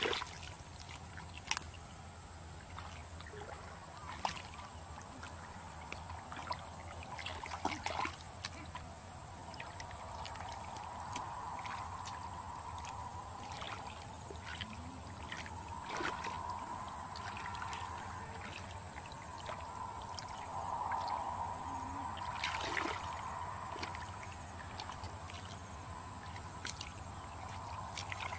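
Hands groping through shallow muddy water: scattered small splashes, sloshing and squelching of wet mud.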